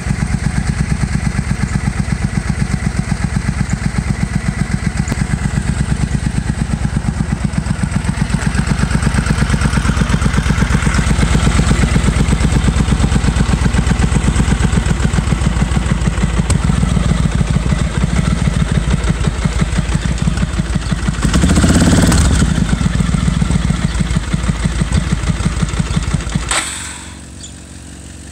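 Suzuki Marauder's V-twin motorcycle engine running on its first start, with a fast, even exhaust beat. It is revved once about three-quarters of the way through, then cuts out near the end. The owner thinks only one cylinder is firing.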